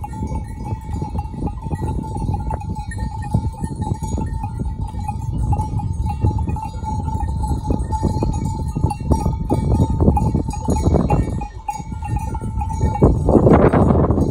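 Flock of sheep grazing, with bells clanking irregularly among them over a steady low rumble. The sound grows louder and noisier about thirteen seconds in.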